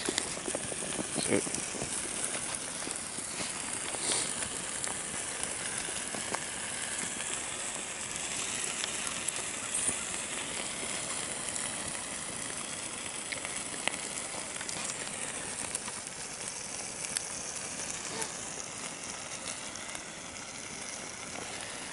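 Burning trash fire crackling and hissing: a steady hiss with scattered sharp pops.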